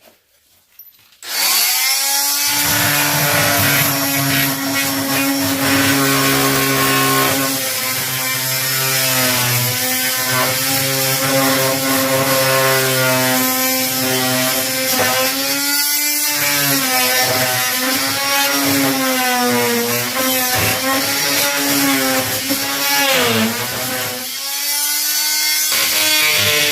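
Electric power saw cutting under load, starting suddenly about a second in. Its motor pitch wavers and sags as it bites, and it eases off briefly near the end.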